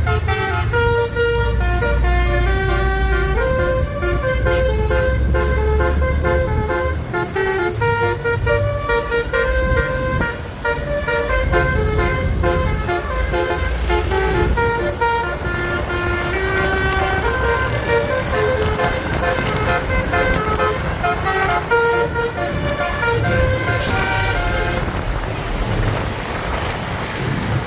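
Bus telolet horn (Basuri multi-tone horn) playing a fast tune of short stepping notes, several tones sounding together, over the low rumble of the bus engine. The tune stops near the end, leaving engine and road noise.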